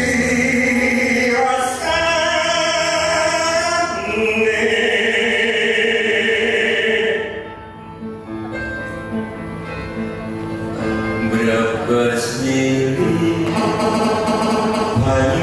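Music with singing: long, held sung notes over instrumental accompaniment, dipping quieter for a moment about halfway through.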